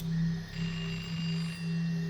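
Eerie sustained electronic drone from the film's sound design: a strong low hum swelling and fading in a slow pulse, with thin high whistling tones coming and going above it.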